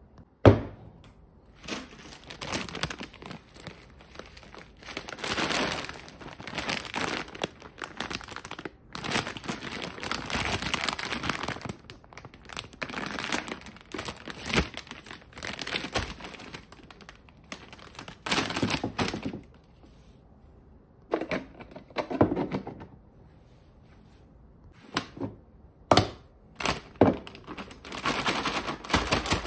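Crinkling of a plastic granola bag being handled, in repeated stretches, with sharp knocks of plastic storage containers set down on a shelf. The loudest is a single sharp knock about half a second in.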